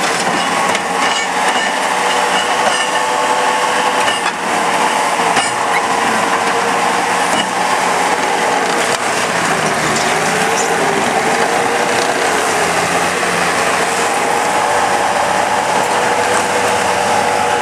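A 2005 Bobcat T190 compact track loader running and travelling. Its diesel engine and hydraulic drive give a steady, slightly wavering whine, over a continuous mechanical rattle from the tracks and undercarriage.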